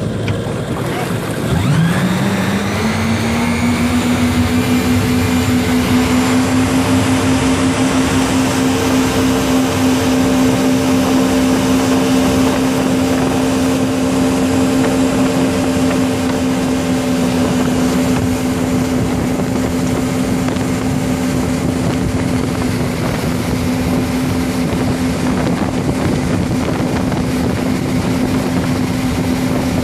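Motorboat engine accelerating hard from low revs about a second or two in to pull a towed rider up out of the water, then running at a steady high pitch at cruising speed. A rushing noise of the wake and wind runs underneath.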